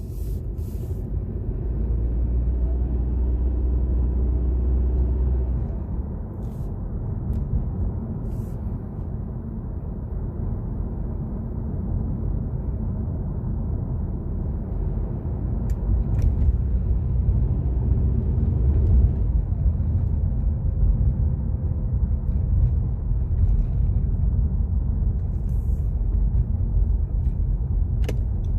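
Honda Civic 1.5-litre turbo with a CVT running, a steady low rumble with a faint whine that comes in a few seconds in and again past the middle. The owner cannot tell whether the whine is normal CVT or turbo noise; the car otherwise runs normally.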